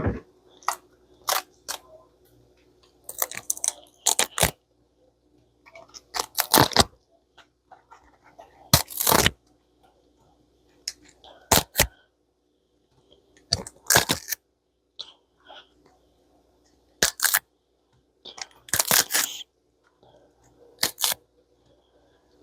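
White cabbage leaves being torn and snapped by hand into smaller pieces, a crisp tearing, cracking sound repeated in short, irregular bursts about a dozen times.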